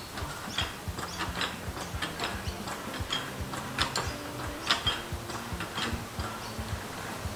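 Hydraulic trolley floor jack being pumped by its long handle, its mechanism clicking and clunking with each stroke.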